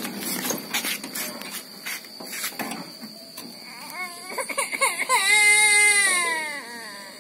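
Rattling and knocking of a wheelbarrow pushed over concrete, then a toddler crying: a few short sobs about four seconds in, then one long cry that falls in pitch. The child is crying because the wheelbarrow ride has stopped.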